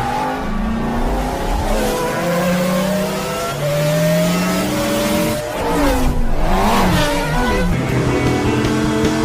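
Race car engines accelerating, their pitch rising in long climbs. Around six to seven seconds in, several cars pass with pitch sweeping up and then down.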